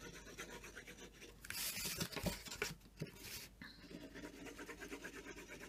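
Faint scratching of a liquid glue bottle's tip drawn in squiggles across cardstock, with two brief louder scrapes, about one and a half and three seconds in.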